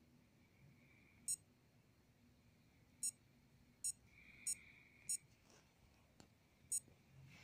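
Casio DW-200 digital watch beeping: six short, high beeps spaced irregularly, one for each press of its buttons as the display steps between modes.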